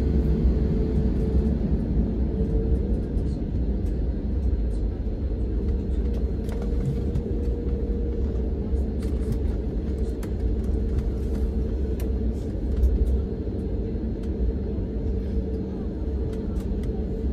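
Cabin sound of an Airbus A321neo taxiing, heard from a window seat: a steady low rumble of the engines at taxi power and the rolling gear, with a steady hum riding above it.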